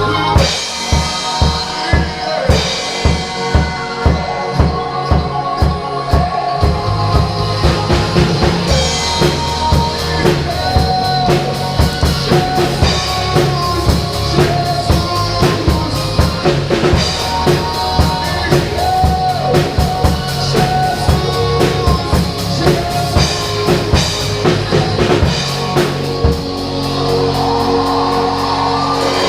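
Drum kit played along to a recorded song: steady bass-drum beats about twice a second for the first few seconds, then fuller playing with snare and cymbal hits, easing off near the end.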